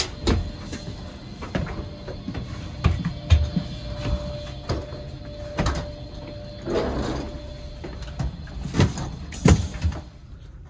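Footsteps and knocks as someone climbs the stairs inside a TGV Euroduplex double-deck coach, and the automatic glass sliding door to the upper-deck saloon opening with a short hiss about seven seconds in. A faint steady tone runs under the first part and stops shortly after the door.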